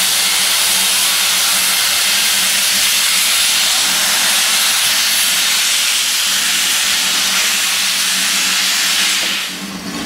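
Steam locomotive releasing steam in a loud, steady hiss, typical of its safety valves blowing off, which cuts off about nine and a half seconds in. A faint low steady hum runs underneath.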